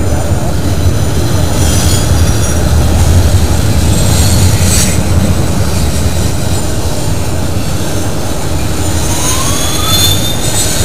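Double-stack intermodal container train rolling past: a steady heavy rumble of steel wheels on rail. Faint thin wheel squeals rise now and then, most plainly near the end.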